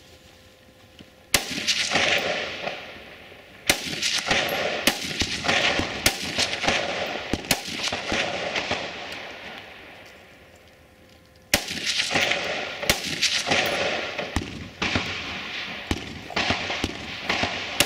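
Rifle shots fired in strings, each followed by a long echo. There is a single shot about a second in, then a string of shots from about four to seven seconds. After a pause of about four seconds, a faster string starts near the twelve-second mark and runs on.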